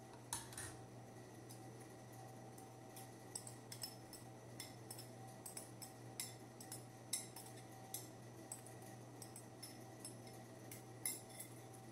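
Metal spoon clinking and scraping against a small glass bowl: a string of light, irregular clicks over a faint steady hum.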